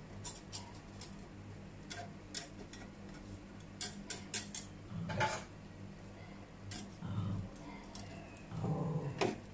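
Metal spatula and fork clicking and scraping against a frying pan in scattered light taps, as the egg wrapper and filling are worked in the pan.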